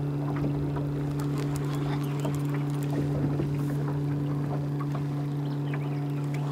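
A boat motor running with a steady low hum, under scattered small clicks and splashes as a hooked catfish is reeled in on a rod and reel.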